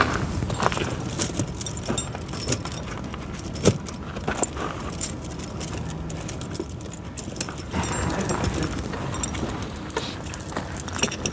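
pewag doppelspur tractor tire chain links jangling and clinking irregularly as the chain is handled.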